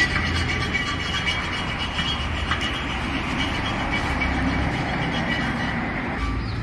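Steady mechanical rumble with a faint hum, like a vehicle or machine running.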